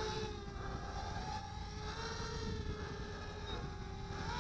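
Vifly R220 M2 racing quadcopter's 2205 2600KV brushless motors and propellers in flight, a steady whine whose pitch wavers slightly with the throttle.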